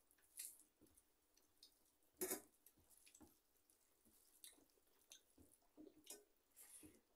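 Faint eating sounds: chewing and fingers squishing rice and dal against steel plates, in scattered short wet clicks, with one louder click about two seconds in.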